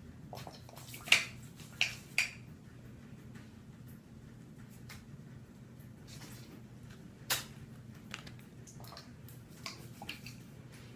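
Short, sharp squirts and clicks from a handheld clear plastic spray bottle: three close together a second or two in and one more about seven seconds in, over a low steady hum.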